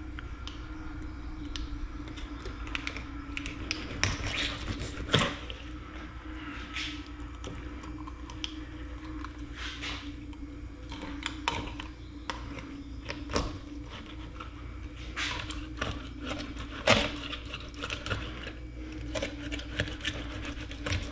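Knife cutting and scraping through a bluegill on a wooden board: irregular clicks, taps and short scrapes as the blade works along the fish.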